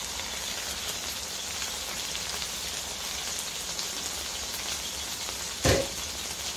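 Seafood paella in a frying pan sizzling and crackling steadily on the hob, uncovered after cooking. A single sharp thump sounds about five and a half seconds in.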